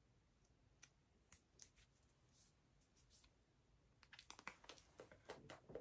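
Near silence: room tone with faint scattered clicks and rustles of small handling noises, more of them in the last couple of seconds.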